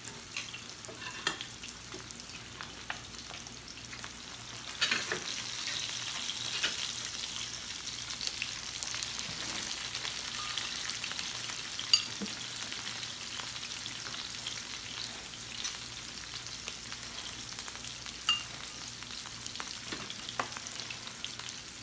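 Meat slices sizzling on the grill ring of a combination Korean barbecue and hot pot pan: a steady frying hiss that grows louder about five seconds in, with scattered light clicks.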